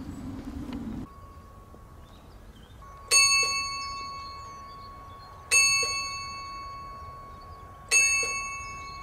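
Outro jingle of bell-like chimes, one struck about every two and a half seconds, three times, each ring fading slowly over a thin held high tone. A second of low outdoor background rumble comes before the cut to it.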